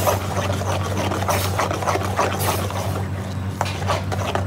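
Metal spoon stirring thick lentils in an aluminium pan: repeated wet scraping strokes against the pan, over a steady low hum.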